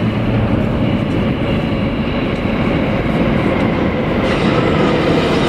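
NYC subway Alstom R160A train arriving at a station: a loud, steady rumble of steel wheels on the rails with a few light clicks, growing brighter about four seconds in.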